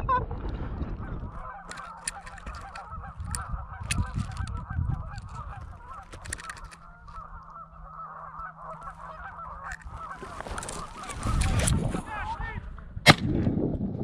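A flock of geese honking, many calls overlapping and growing louder as the flock comes closer, with a single sharp bang about a second before the end.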